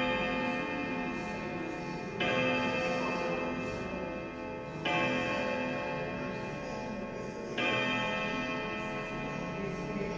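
An over-80-year-old Junghans wall clock striking the hour: three slow, evenly spaced strikes, each ringing on until the next, with the clock's ticking underneath.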